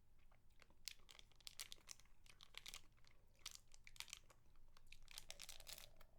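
Close-miked wet mouth sounds of licking and sucking on a spicy mango lollipop: a quiet, irregular run of small sharp clicks and crackles.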